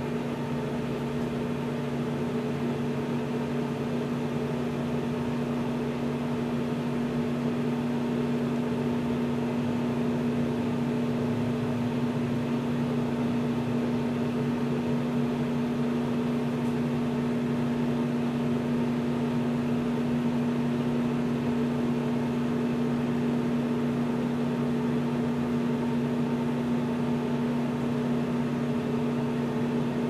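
Over-the-range microwave oven running with a steady, unchanging hum.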